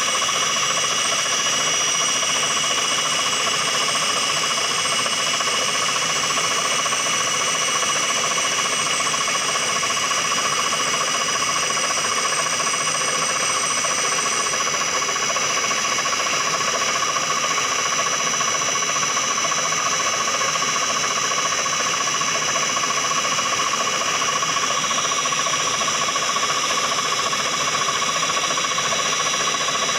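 CNC milling machine running steadily, a constant machine whine made of several steady tones over a noisy hum. A faint high warbling tone stops about halfway through.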